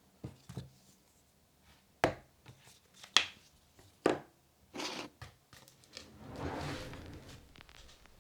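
Close handling sounds: a series of sharp clicks and knocks, a few of them louder than the rest, then a longer rustling, sliding noise about six seconds in.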